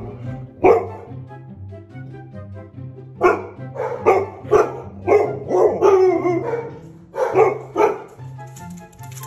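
A dog barking at the window in short bursts: a single bark, then a run of about seven barks with one drawn-out, wavering bark in the middle. Background music plays underneath.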